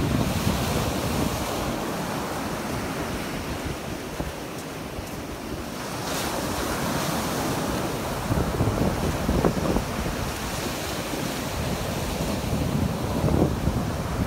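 Sea surf breaking and washing up a sandy beach, swelling and ebbing, with wind buffeting the microphone.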